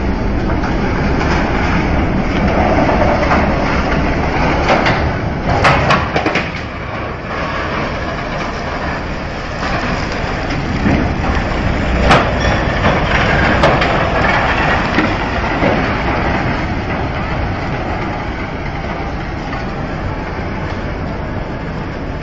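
Steel ship hulls grinding and scraping together in a collision: a loud continuous rumble with sharp cracks and bangs about six seconds in and again around twelve seconds in.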